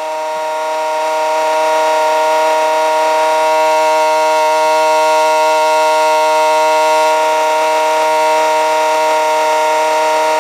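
Home-built motor-generator running under load, giving a steady humming whine at a constant pitch that swells over the first two seconds and then holds.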